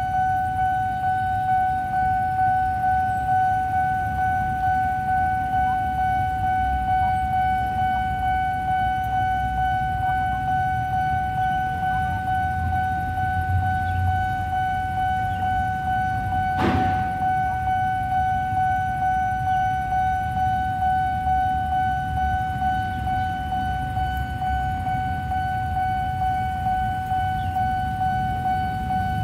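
Railway level-crossing warning alarm sounding continuously, a steady high electronic tone with a regular pulse, the signal that a train is approaching. A low rumble sits underneath, and a single sharp knock comes about two-thirds of the way through.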